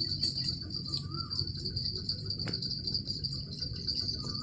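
Insects chirring steadily at one high pitch over a low rumbling background, with a short warbling call about a second in and a single click about two and a half seconds in.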